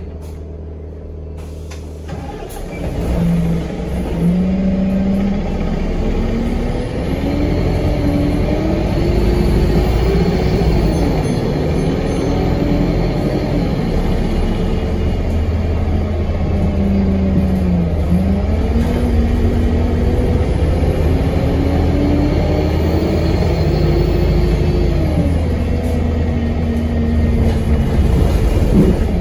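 Alexander Dennis Enviro 200MMC single-deck bus heard from inside the saloon: the diesel engine runs quietly at first, then pulls away. Its note climbs in pitch and drops back at each gear change, several times over.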